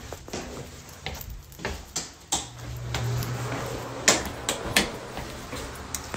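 Someone moving about a room and handling things: scattered knocks and clicks, with a low hum for a second or so a little over two seconds in.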